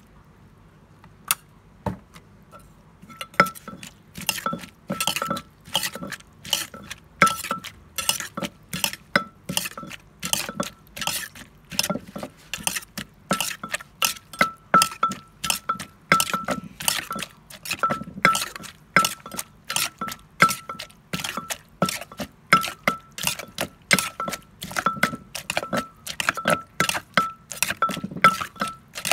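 Wooden pestle pounding papaya salad in a clay mortar, about two strokes a second, each with a short ringing clink, while a metal spoon turns the mix. A single knock comes just over a second in, and the steady pounding starts about three seconds in.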